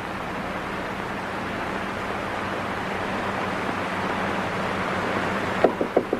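A steady hiss, then, near the end, a quick run of four or five knocks on a door.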